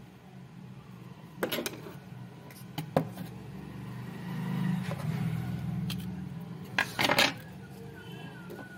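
Sharp plastic clicks and knocks as a Nokia keypad phone's circuit board is pried out of its plastic front housing, loudest about three seconds in, with another cluster near the end. A steady low hum runs underneath.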